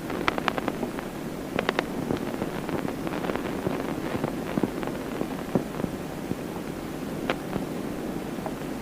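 Telephone line noise: a steady hiss with irregular crackles and sharp pops, a cluster of them in the first two seconds and a strong click near the end.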